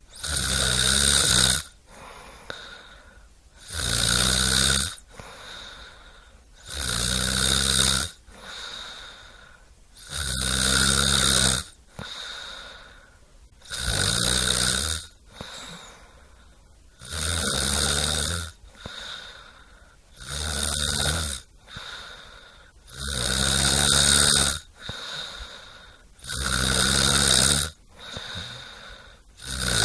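A person snoring in a steady rhythm: about ten loud, rattling snores on the in-breath, one roughly every three seconds, with quieter breathing out between them.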